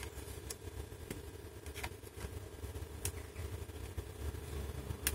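A few faint, sharp clicks and taps of fingers working a small ribbon cable into its connector on a laptop's palm rest, over a steady low hum.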